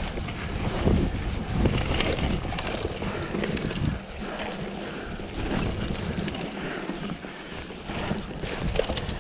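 Wind buffeting the microphone while a mountain bike's tyres roll over a dirt and gravel trail, with scattered clicks and rattles from the bike. Louder for the first four seconds, then lower.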